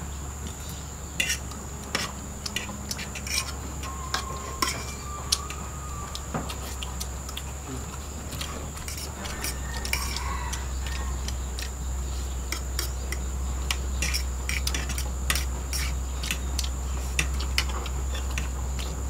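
Metal spoons and forks clinking and scraping against plates during a meal, a string of irregular sharp clicks.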